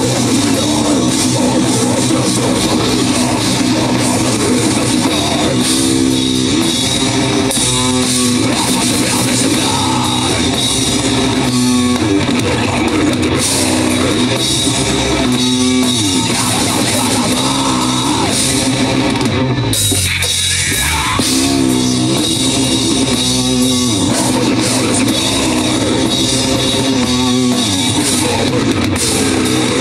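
Rock band playing live: heavy electric guitars over a drum kit, in a steady, loud heavy rock groove, with a short break in the texture about two thirds of the way through.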